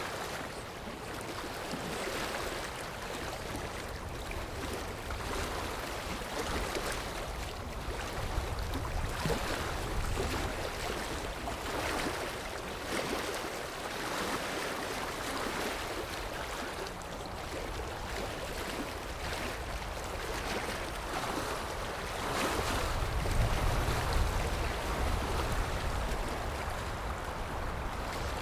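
Sea waves washing in, swelling and easing every few seconds, with a heavier low rumble from a bigger wave about 23 seconds in.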